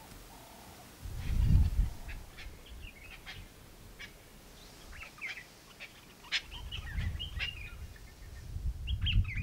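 Small birds chirping and trilling in many short, high calls. Low rumbles about a second in and again near the end are louder than the birds.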